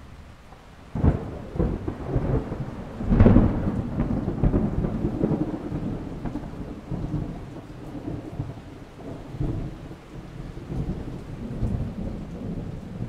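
Thunder: a sharp crack about a second in, a louder peak a couple of seconds later, then a long low rumble that slowly fades.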